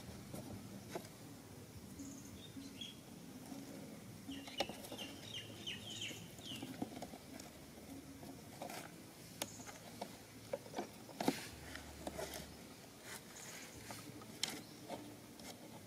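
Scattered light clicks and taps of hands working at a cardboard box trap and its wooden sticks, coming more often in the second half. A quick series of bird chirps comes about five seconds in.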